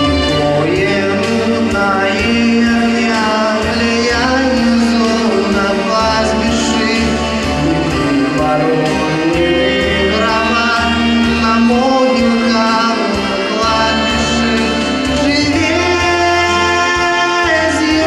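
Background music: a song with a sung melody over sustained low accompaniment.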